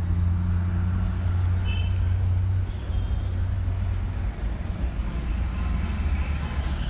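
A nearby motor vehicle's engine idling with a steady low hum over road traffic noise. The hum drops in level a little under halfway through.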